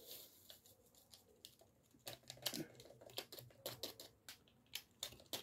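Faint rustling and light irregular ticks as a seasoning packet is shaken out into a cup of instant udon noodles: the packet crinkling and the dry soup base pattering into the cup.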